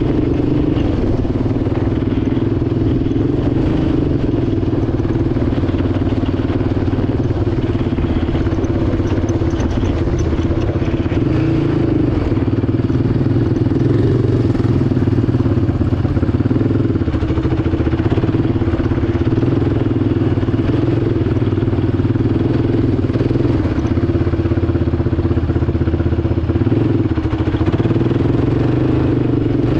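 Yamaha ATV engine running steadily under load while riding a dirt trail, its pitch rising and dipping slightly with the throttle.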